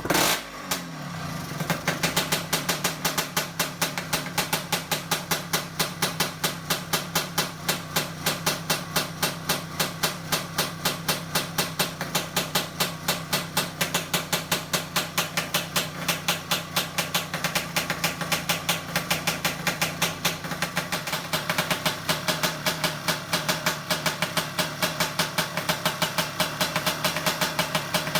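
Two-stroke Kawasaki Ninja drag-bike engine catching and then idling unevenly, with a regular popping beat of a few pulses a second over a steady running note.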